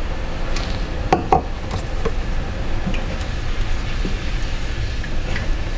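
Chopped tomatoes scraped out of a measuring jug into a stockpot of stock with a mixing spatula, then stirred into the liquid, with a few light knocks of the spatula about a second in. A steady low hum runs underneath.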